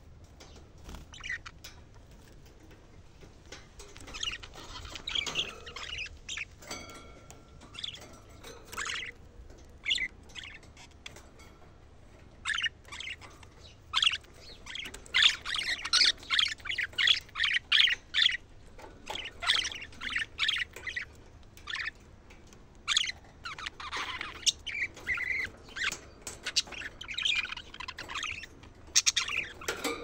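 Budgerigars chattering: quick high chirps and squawky warbles, sparse at first and coming thick and fast from about halfway through.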